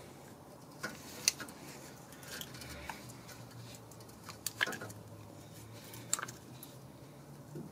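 A few scattered small metallic clicks and taps as a greased brake caliper slide pin in its rubber boot is worked back into the caliper by hand. The sharpest clicks come about a second in and again past the middle.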